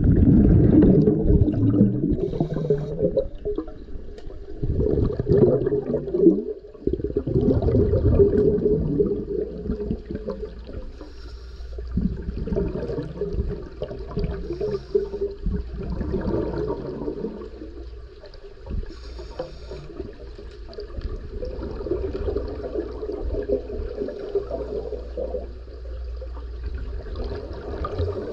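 Scuba diver's exhaled breath bubbling out of the regulator, heard underwater as repeated gurgling bursts, louder in the first several seconds, with brief hisses now and then.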